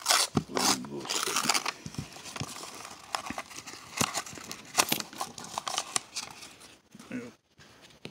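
Paper coin wrapper on a roll of pennies being crinkled and torn open by hand, with sharp clicks as the copper pennies are pushed out onto the cardboard; it goes quieter about seven seconds in.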